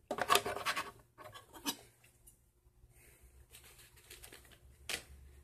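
Scratching and rustling as small objects are handled close to the microphone, in short bursts in the first two seconds, then one sharp click near the end.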